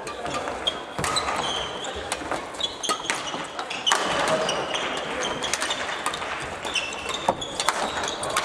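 Badminton play in a large sports hall: sharp racket strikes on shuttlecocks and footfalls, with short high squeaks of shoes on the wooden floor, over a hubbub of distant voices from the other courts.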